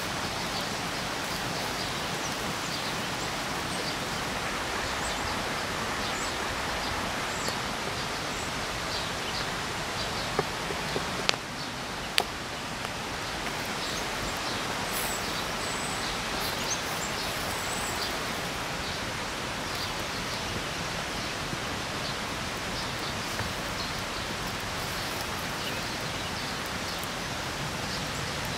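Steady rushing of river water, with the small crackles of a wood campfire and a few sharp pops a little before halfway through.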